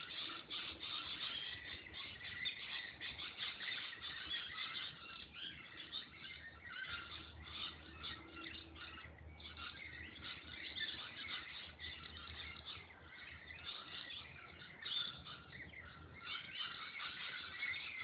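A dense chorus of many birds chirping and calling over one another without pause.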